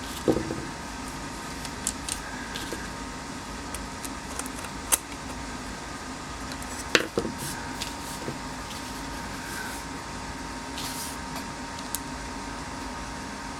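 Small metal parts and screws clicking and knocking as a turn signal switch is worked into a GM tilt/telescopic steering column. The sharpest knocks come near the start and about seven seconds in. A steady background hum runs underneath.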